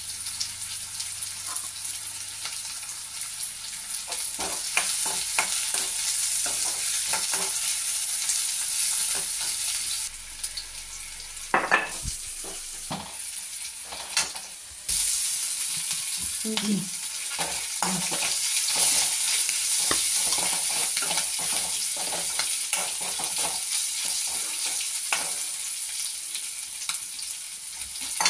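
Sliced onions, curry leaves and green chillies sizzling in oil in a metal kadai while being sautéed, with a metal spoon repeatedly scraping and clinking against the pan. The sizzle drops lower for a few seconds in the middle, where a couple of louder clinks of the spoon on the pan stand out.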